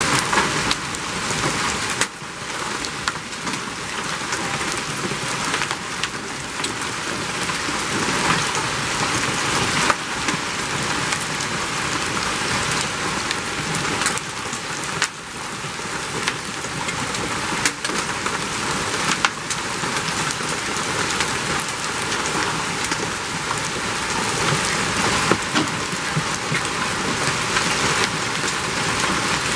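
Heavy hail falling and pelting hard surfaces, a dense steady clatter of many small sharp impacts mixed with the wash of heavy rain.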